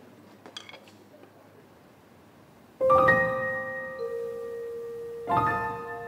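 Grand piano: a few quiet seconds, then a chord struck about three seconds in and left to ring. A second chord comes near the end.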